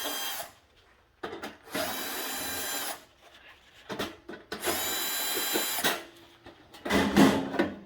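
Cordless power screwdriver whirring in three short runs of about a second each while it backs out the screws holding the top cup-tray panel of a Rancilio Silvia espresso machine. A brief, louder clatter comes near the end.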